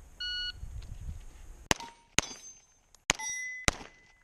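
An electronic shot timer gives its short start beep, then a Glock pistol fires four quick shots, the steel plate targets clanging with a short ring after the hits.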